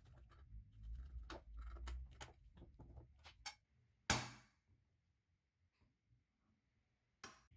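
Small clicks and light knocks of model car parts being handled and screwed together, with one sharper, louder click about four seconds in and another near the end.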